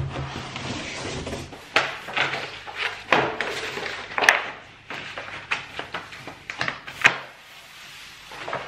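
Cardboard box and protective paper being handled while unpacking a wooden picture frame: rustling and scraping with sharp knocks, the loudest about four and about seven seconds in.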